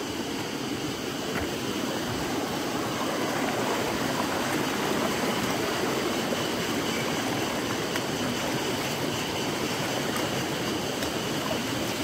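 Steady rush of water flowing over rocks.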